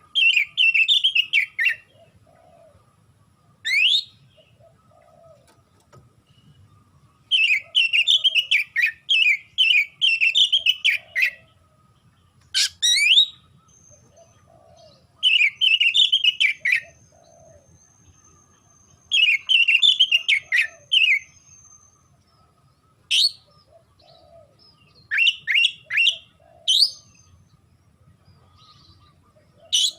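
Oriental magpie-robin (kacer) singing loudly in full, aggressive song. It delivers bursts of rapid chattering notes a few seconds long, separated by pauses, with several short, sharp rising whistles.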